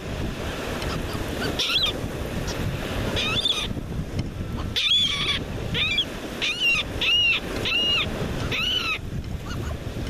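Laughing gulls calling: about eight short, arched calls, sparse at first and then coming about twice a second in the second half, over steady surf and wind.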